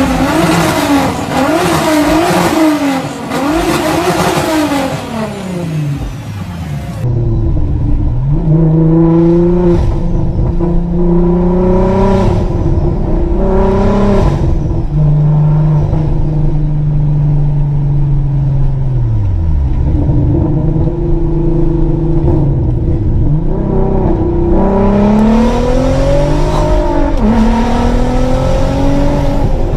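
Volkswagen Golf Mk4 R32's 3.2-litre VR6 engine revved hard several times, the revs rising and falling. It is then heard from inside the cabin accelerating through the gears, the engine note climbing and dropping at each shift.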